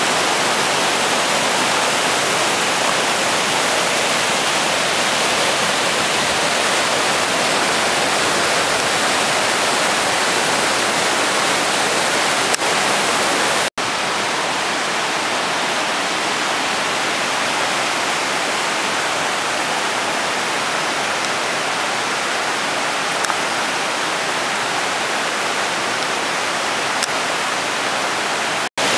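Loud, steady rushing of the Hammersbach mountain stream and its cascades through the narrow Höllentalklamm gorge. It breaks off for an instant twice, about 14 seconds in and near the end.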